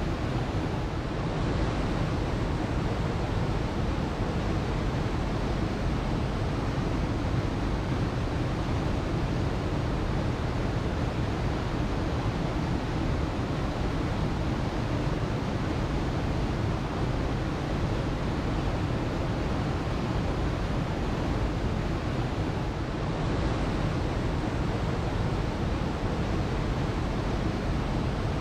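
Waterfall, its water falling and rushing in a steady, unbroken roar with no change in level.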